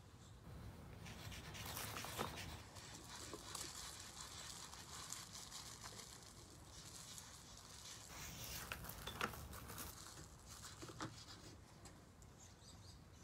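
Faint scratching of sidewalk chalk on concrete, uneven and scratchy, with a few light ticks.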